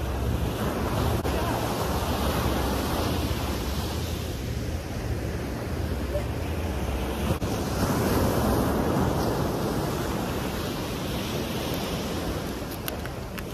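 Ocean surf washing onto the beach, swelling as waves break about a second in and again around eight seconds, with wind buffeting the microphone.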